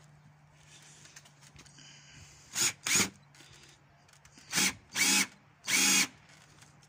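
Power drill with a 44 mm hole saw against a plastic car grille, run in five short bursts, the last one the longest, its pitch rising and falling with each burst. The hole saw is not turning because it was not tightened in the drill, so it is not cutting.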